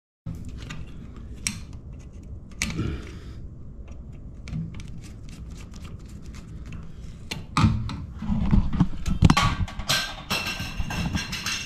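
Small clicks, knocks and metallic clatter as a screwdriver works on a steel electrical box mounted on a metal strap, getting busier and louder a little past halfway.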